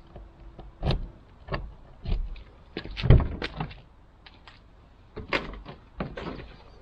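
The side entry door of an XGO Dynamic 68p motorhome being unlatched and swung open: a series of clicks and knocks, with a heavier thump about three seconds in. A few more knocks follow near the end as someone climbs the entry step into the van.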